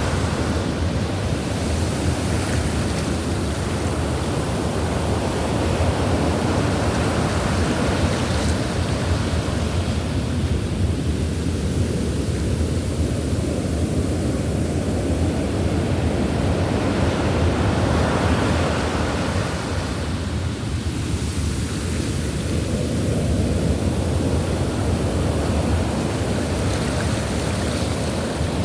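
Ocean surf: a continuous rush of breaking waves with a deep rumble, swelling and easing slowly, with lulls about 12 and 21 seconds in.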